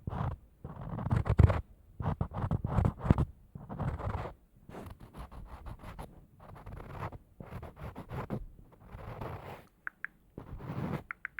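Scratching and scraping noises in irregular strokes about half a second to a second long, with a couple of brief high squeaks near the end.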